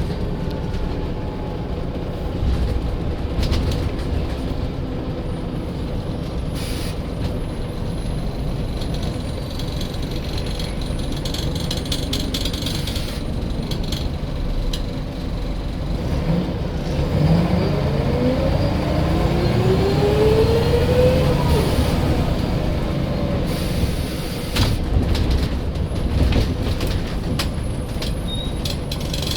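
Scania L94 bus's turbocharged diesel engine pulling away, with a turbo whistle that rises in pitch a little past halfway and then drops off, amid air brake hisses.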